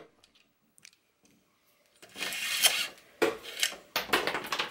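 Metal scraping and rubbing at a Shimano 105 rear derailleur's cable clamp as the old shift-cable remnant is worked loose and pulled out: a longer scrape about two seconds in, then a few shorter ones.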